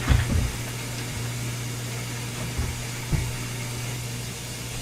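A steady low mechanical hum under a faint hiss, with a few dull knocks near the start and again about three seconds in.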